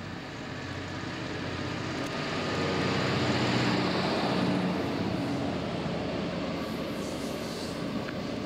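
EWS Class 66 diesel locomotive passing with a train of loaded coal wagons: its two-stroke V12 engine note builds and is loudest about three to four seconds in as it goes by, then gives way to the steady rumble and clatter of the wagons' wheels on the rails.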